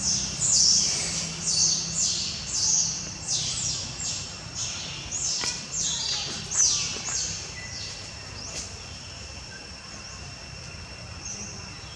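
Repeated high chirps, each falling in pitch, one to two a second, fading out after about eight seconds, over a steady high insect-like drone.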